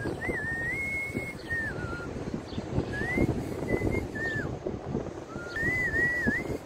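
Outdoor street noise with wind on the microphone, and over it a person whistling a tune, a single wavering melody line that rises and falls and pauses a few times.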